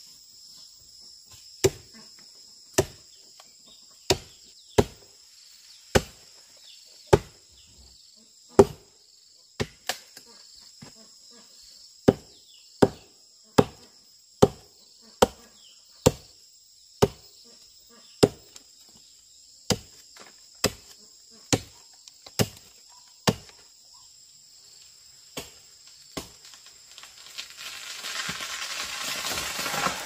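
A hand tool striking something about once a second, some two dozen blows with short pauses, against a steady chirring of crickets. Near the end a rushing noise swells up.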